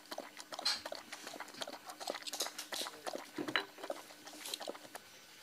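A dog lapping from a glass: a run of quick, irregular wet clicks.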